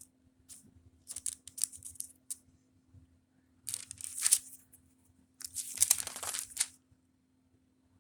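Paper pages being rustled and flipped in three bursts, the last two the loudest: a search back through a book for a passage.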